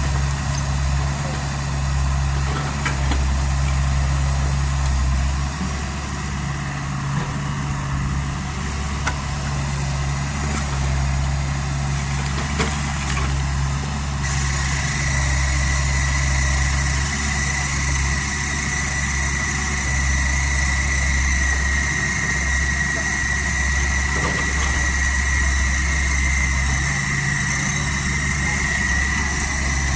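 Kubota U50 mini excavator's diesel engine running steadily at idle. About halfway through, a steady high-pitched whine joins it.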